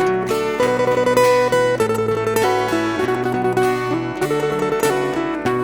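Instrumental break of an acoustic band: a plucked-string lead picks a quick melody over acoustic guitar chords, with no singing.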